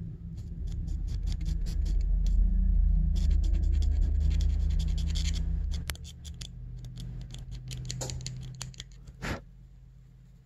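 Sandpaper scratching over the small copper contacts of a snowmobile throttle/stop switch in a run of short strokes, rubbing off dirt and grime buildup. A low rumble runs under the first half, and there is a single sharp knock near the end.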